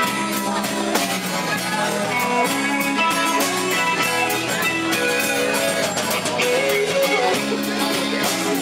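Live rock band playing an instrumental passage: a guitar carries a shifting melodic line over a steady drum beat.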